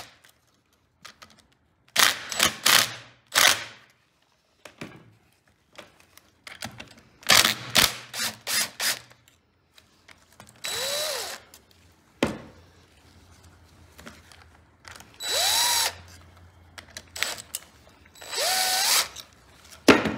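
Small power driver with a 7/16 socket spinning the connecting-rod cap bolts out of an old Clinton C-700 engine. It is run three times in short bursts, each rising in pitch and falling away as it spins down. Before the bursts come two spells of clicking from ratcheting and handling the tool on the bolts.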